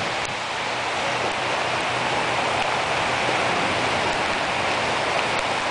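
Steady rushing hiss of heavy rain.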